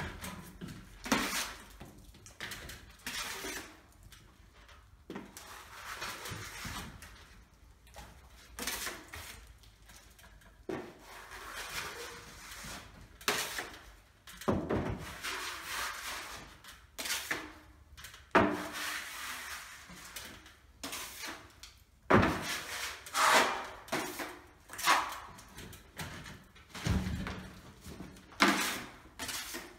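Wide filler knife spreading and smoothing filler across a wall in repeated scraping strokes, with a few sharp knocks between strokes.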